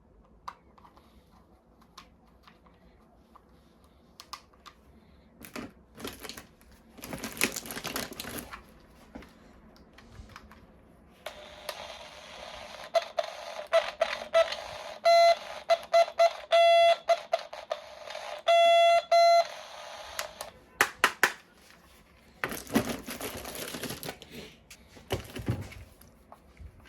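Electronic toy gun sound effect: a hiss carrying rapid runs of high beeping pulses in two bursts around the middle. Clicks and plastic rustling from handling the toy and packaging come before and after.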